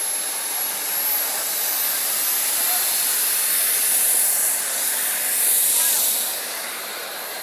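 Small model jet turbine of an RC Boomerang Nano running: a high thin whine over a rushing hiss. It grows louder, then the whine falls in pitch and the sound fades near the end, as from a passing aircraft.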